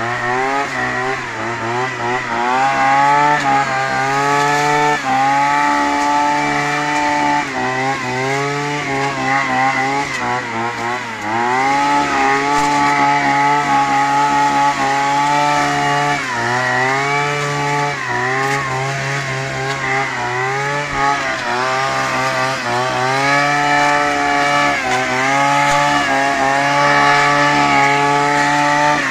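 Brushcutter engine driving an adapted blower attachment, running at high revs with the pitch dipping and rising again several times as the throttle is eased and reopened. The blower is sweeping fallen coffee beans and leaves along the ground.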